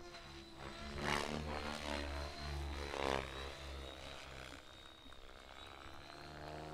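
Radio-controlled aerobatic model plane's engine and propeller surging and dropping in pitch as it is throttled through a freestyle manoeuvre, loudest about a second in and again near three seconds. Background music with a stepping bass line plays under it.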